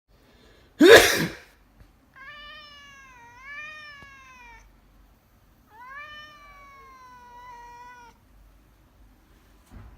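A person's sneeze, sudden and loud, about a second in, followed by a Burmese cat's two long, drawn-out meows in reply, each lasting about two and a half seconds: the cat's protest at the sneeze.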